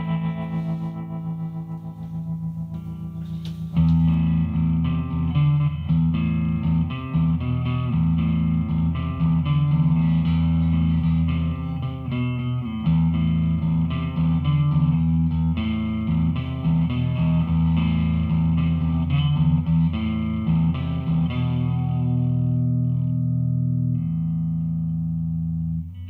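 Electric guitar played through a Behringer V-AMP PRO amp-modelling processor, a run of picked notes and chords with an effects-processed tone. About four seconds in the sound turns louder and much fuller in the low end, as a different preset comes in.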